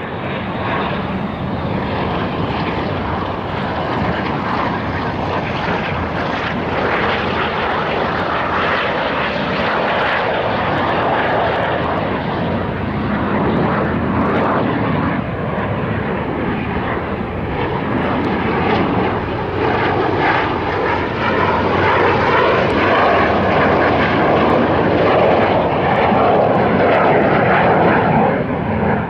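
Aircraft engine noise, loud and continuous, growing somewhat louder over the last several seconds.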